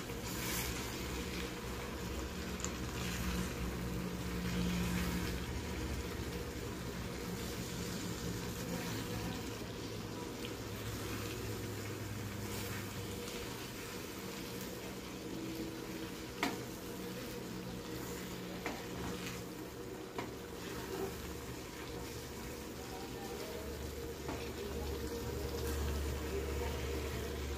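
Spinach and meat curry sizzling and simmering in a nonstick frying pan as a wooden spatula stirs and scrapes through it, with a few sharp taps of the spatula against the pan.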